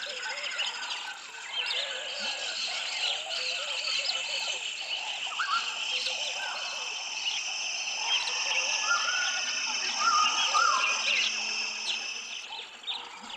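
Jungle wake-up sounds from a BabyZoo Sleep Trainer children's alarm clock: a dense mix of recorded bird calls and chirps over a steady high hum, the hum stopping about twelve seconds in.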